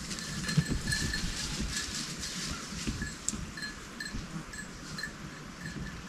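Wind buffeting the microphone, with small bells tinkling faintly and irregularly over it.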